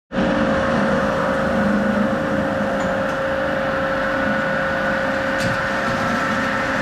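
Kasto SBA 260 AU automatic metal-cutting band saw running: a steady machine drone with a held mid-pitched tone.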